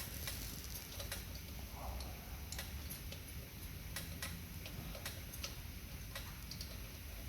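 Light clicks from hand-tool work, irregular at about two to three a second, over a low steady background rumble.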